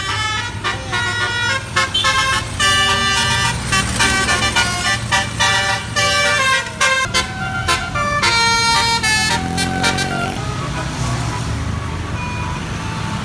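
Bus 'telolet' horn, a set of musical air horns, playing a quick melody of short, pitched notes over a running bus engine. About ten seconds in the notes stop and the engine and road noise carry on.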